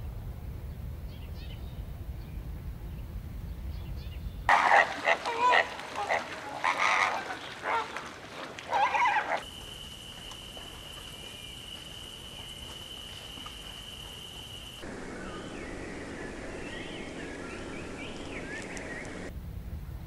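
A run of short nature recordings joined end to end. A low hiss comes first, then loud, irregular animal calls about five seconds in. After that a steady high whine holds for about five seconds, and soft twittering bird chirps end the run.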